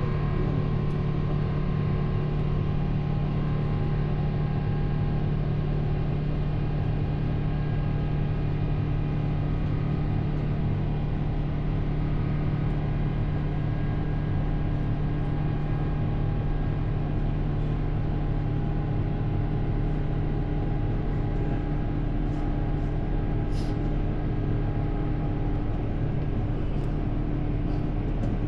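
Steady drone inside a jet airliner's cabin in flight: a constant low hum from the engines under even airflow noise.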